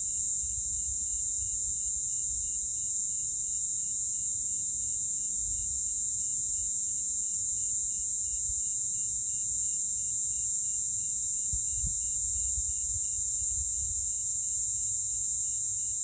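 Cicada chorus: a steady, high-pitched drone that never lets up, with fainter, slightly pulsing trills lower in pitch beneath it.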